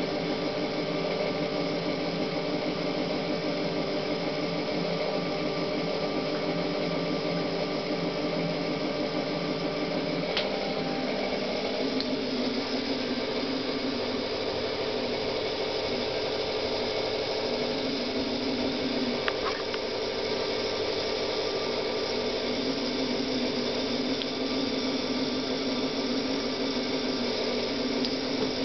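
Water running steadily from a tap, with two faint clicks partway through.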